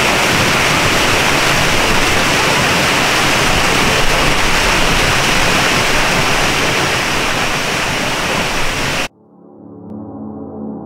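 Steinsdalsfossen waterfall pouring, a loud, steady rush of falling water heard from right beside it, which cuts off suddenly about nine seconds in. A soft musical tone follows for the channel's logo intro, swelling and then fading.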